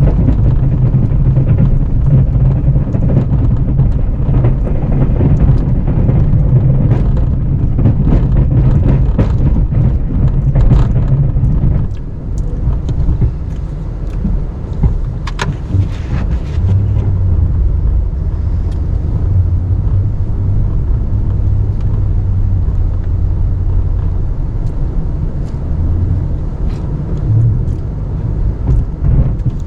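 Snow-plow truck's engine running under load while the blade pushes packed snow. About twelve seconds in it drops and settles to a lower, steady drone.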